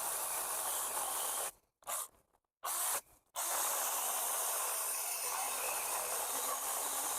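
Small cordless battery chainsaw running and cutting wood, a steady hissing rasp with no clear tone. The audio drops out completely three times for a fraction of a second each around the middle.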